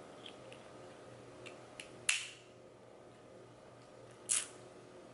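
Crab shell clicking and cracking as it is picked apart by hand: a few light clicks, a loud sharp crack about two seconds in, and another sharp click near the end.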